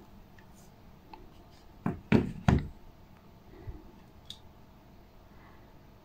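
Handling knocks from a glass touch light-switch panel being picked up and turned in the hand: three sharp knocks close together about two seconds in, with a few faint clicks around them.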